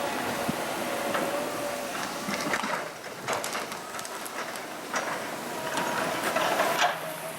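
Excavator at work: a steady engine and hydraulic whine with scattered sharp cracks and clanks, heaviest about halfway through and again near the end.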